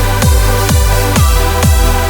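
Electronic dance music with a steady four-on-the-floor kick drum beat, about two beats a second, under sustained synth chords.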